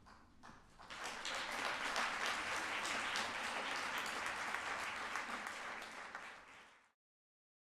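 Congregation applauding, swelling in about a second in and holding steady, then cutting off abruptly near the end.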